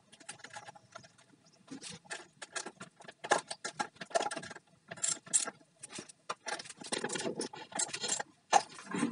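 Irregular metallic clicks and rattles of battery cable lugs, terminal hardware and tools being handled while wiring up lead-acid inverter batteries.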